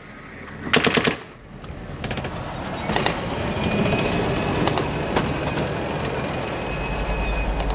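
A short loud burst of rapid clattering about a second in, then a heavy vehicle's steady rumble, with a few sharp knocks.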